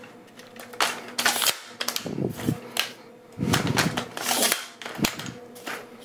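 Tripod and fluid video head being handled and fitted together: a string of sharp clicks and knocks from their plastic and metal parts, with some rubbing and rustling in between.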